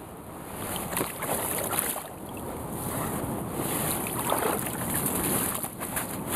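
Water splashing and sloshing at the bank edge as a carp is let go from a wet fabric sling and the sling is lifted out, in several irregular splashes over a background of wind on the microphone.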